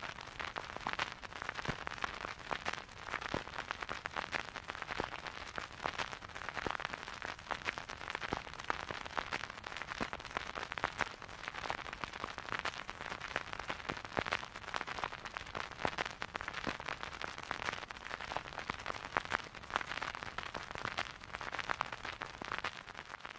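Vinyl record crackling under the stylus: a dense, irregular run of small clicks and pops over a soft surface hiss, with no music.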